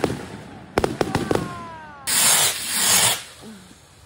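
Consumer fireworks going off. Sharp bangs come about a second in, trailed by several falling whistling tones, and then a loud hissing rush of launching or spraying effects runs for about a second before it dies down.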